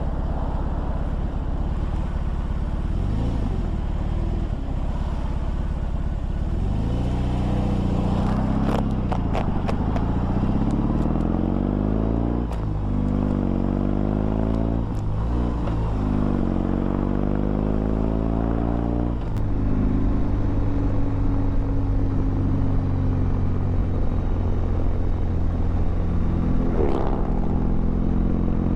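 A 2021 BMW R18 Classic's 1802 cc boxer twin pulls away and accelerates up through the gears. The engine note rises and drops back at each of three gear changes, then holds steady at cruising speed.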